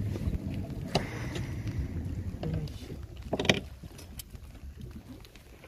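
Low steady rumble of the fishing boat's engine. A sharp knock about a second in and a louder clatter at about three and a half seconds as a fish and gear are handled on the deck.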